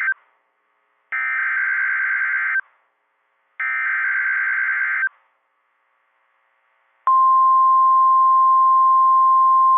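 EAS SAME header: the end of one digital data burst, then two more warbling, screeching bursts of about a second and a half each, spaced about a second apart. After a gap of about two seconds, the steady single-pitch 1050 Hz National Weather Service alert tone starts and holds loud. Together they mark the start of a new weather warning.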